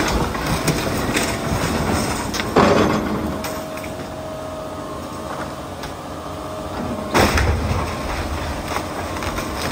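John Deere excavator running with a steady whine of engine and hydraulics while its bucket breaks up a wooden building. Two loud crashes of breaking timber stand out, about two and a half seconds in and again about seven seconds in.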